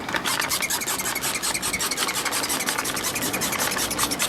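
Quick, even back-and-forth strokes of hand abrasion, an abrasive or file rubbing on a hard surface during an engine top-end rebuild.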